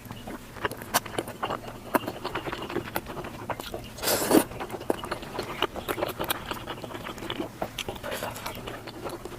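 Close-up eating sounds played at double speed: rapid chewing, biting and mouth clicks, with one louder, noisier burst about four seconds in.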